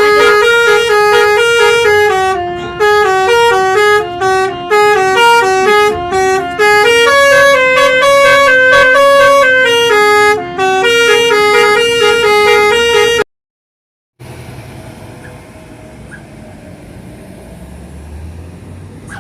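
Basuri telolet bus horn playing a quick, stepped multi-note melody, loud, before cutting off abruptly about thirteen seconds in. After a second of silence, much quieter background noise with a low rumble follows.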